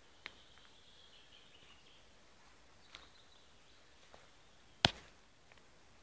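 Quiet forest ambience: a faint, thin high tone that fades in and out, and a few sharp clicks, the loudest a little before the end.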